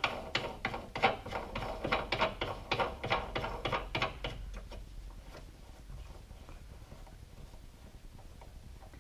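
Tightening the nut onto a plastic through-hull fitting for a livewell spray bar makes a fast run of even ratchet-like clicks, about four a second. The clicks fade after about four and a half seconds to faint scattered ticks.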